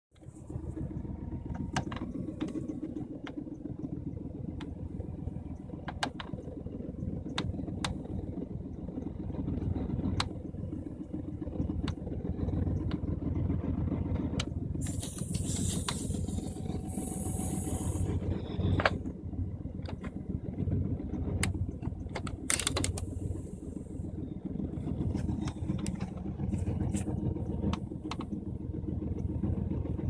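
A/C control switch of a 1995 GMC G2500 van hissing behind the pulled-out dash control panel, in bursts about halfway through and again a few seconds later, over a steady low rumble from the van's running engine. The hiss goes with an air conditioner that has stopped working. Scattered light clicks throughout.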